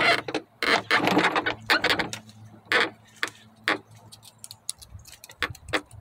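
Long serpentine-belt tool levering a 2010 Mazda 6's belt tensioner as the new belt is slipped over the pulley: irregular metallic clicks and scrapes, the loudest in the first four seconds.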